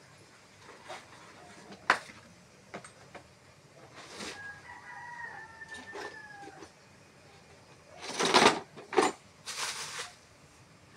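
A rooster crows once, a long call of about two seconds that falls in pitch at its end. Around it, a sharp click early on and, near the end, several louder bursts of rustling noise.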